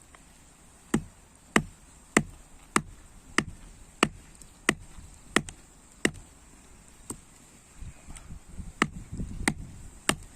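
Repeated sharp chopping strokes, about one every 0.6 seconds, then a few more spaced further apart near the end over some low rustling and knocking.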